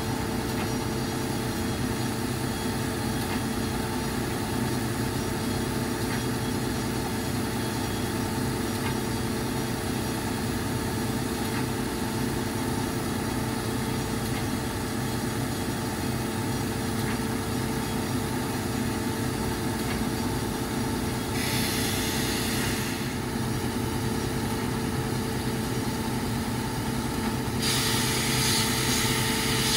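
Timesavers 37-inch wet belt grinder running with a steady hum as its conveyor carries a part through. A brighter hiss comes in briefly a little past twenty seconds in, and again near the end.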